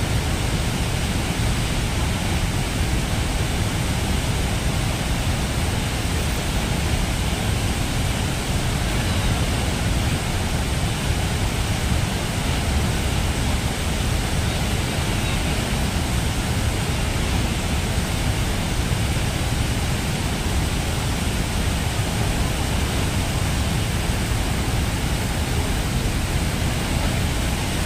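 Roar of Niagara's Horseshoe Falls and the churning water below it: a steady, dense rush, heaviest in the low end.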